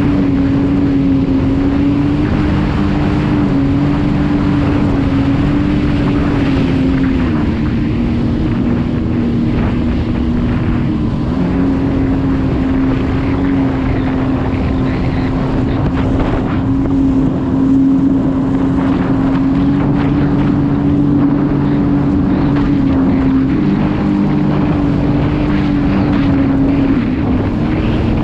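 Sea-Doo personal watercraft's engine and jet drive running at a steady cruising speed, a continuous whine that drops a little in pitch about seven seconds in and comes back up about four seconds later.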